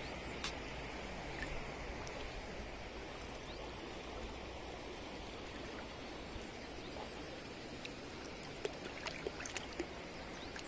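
Shallow river flowing over a pebble bed: a steady rush of running water, with a few short sharp clicks near the end.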